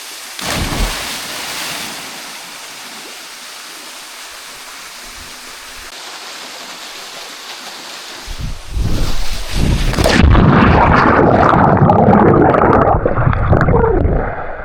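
Steady rush of a waterfall, with a brief surge of noise just after the start. From about eight seconds, loud churning, splashing water noise takes over and turns muffled about ten seconds in.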